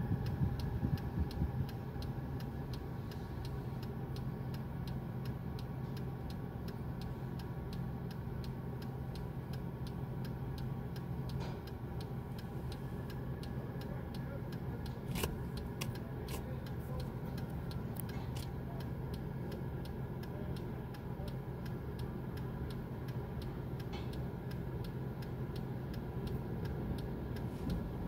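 Car wash tunnel machinery heard from inside a car: a steady low hum with rapid, regular ticking, and a couple of sharper clicks about fifteen and eighteen seconds in.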